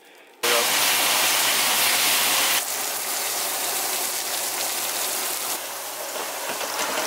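Food frying: duck breasts sizzling in a hot frying pan, then battered onion rings frying in a deep fryer. The sizzle starts suddenly about half a second in, loudest at first, and its character changes a little twice as the shots change.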